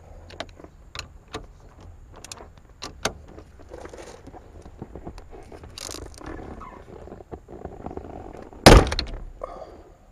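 Socket wrench on the tight 19 mm steering wheel nut of a 1996 Honda Civic: scattered clicks and knocks as the wrench is worked, then one loud sharp crack near the end as the nut breaks loose.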